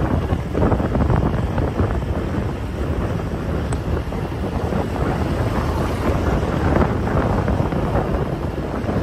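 Wind buffeting the microphone: a loud, rumbling, ever-shifting rush with no steady tone.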